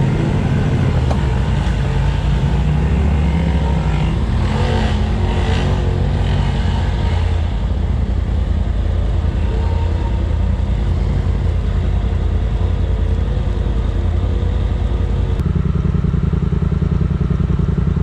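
Engine of a Polaris RZR side-by-side running steadily as it drives along a rough dirt trail, its note shifting about fifteen seconds in.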